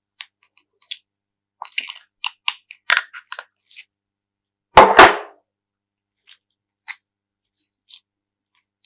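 Slime being handled: scattered small crackles and clicks, with one loud double pop about five seconds in, then a few faint clicks.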